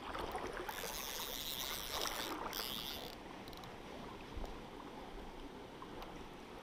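Shallow river water rippling and sloshing around wading legs, with a rustling hiss from about one to three seconds in.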